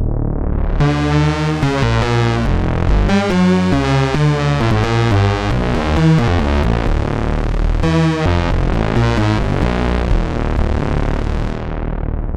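Synthesizer bass patch from the Palindrome 11 library, sampled from analog modular hardware, playing a deep sustained bass line whose bright upper overtones keep shifting. It thins out and fades near the end.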